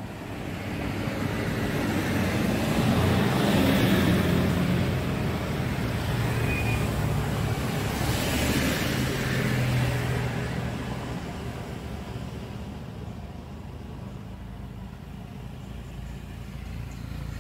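Road traffic: motor vehicles going by, with two passes loudest about 4 and 9 seconds in, then a lower steady hum.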